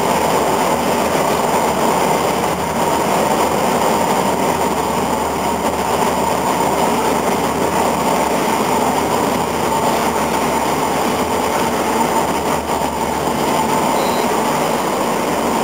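Motorboat engine running steadily as the boat cruises slowly under a low bridge, with the hull pushing through the water; a constant, unbroken noise.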